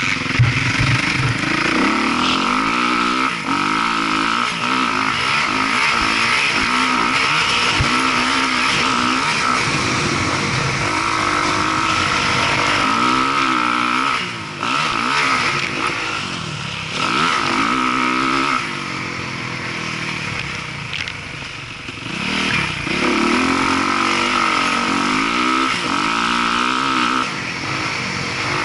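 Dirt bike engine heard close up from the bike as it is ridden around a motocross track. The engine note rises and falls repeatedly with throttle and gear changes. The throttle is rolled off briefly about halfway through and for a couple of seconds around two-thirds through.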